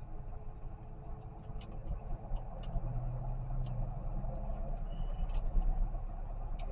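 A car driving: a steady low engine and road rumble that grows a little louder about two seconds in, with a few faint scattered clicks.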